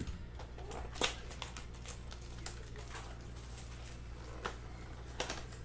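Cardboard trading-card blaster box being handled and opened by hand: scattered taps, scrapes and crinkles of cardboard and plastic wrap, the sharpest about a second in, over a low steady hum.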